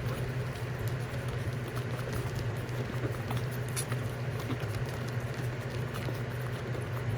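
Small puppies' paws pattering and scratching as they move about, many small irregular clicks over a steady low hum.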